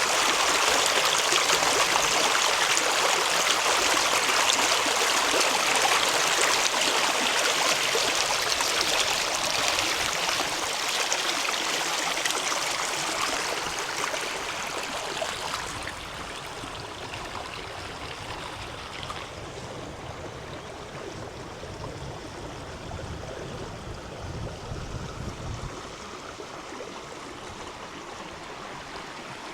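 River water rushing and splashing over rocks, a steady hiss that grows clearly fainter about halfway through.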